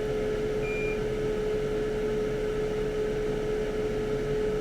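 Steady hum of running workbench equipment: one constant mid-pitched tone over an even, fan-like rushing noise. A short, faint high beep sounds about half a second in.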